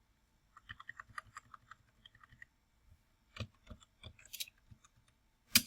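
Typing on a computer keyboard: a quick run of small key clicks, then a few sparser, sharper clicks, the loudest near the end.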